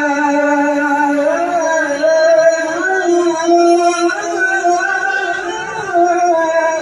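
A man reciting the Quran in the melodic tilawah style, drawing out a single vowel with no words. He holds a long high note, then rises about a second in into wavering melismatic turns, and settles back onto a held note near the end.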